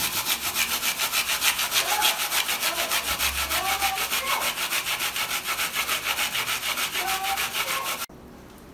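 An apple being grated on a stainless steel hand grater: rapid, regular rasping strokes that stop abruptly near the end.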